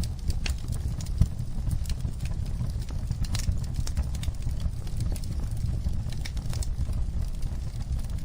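Wood fire crackling, with irregular sharp pops and snaps over a low, steady rumble of flames.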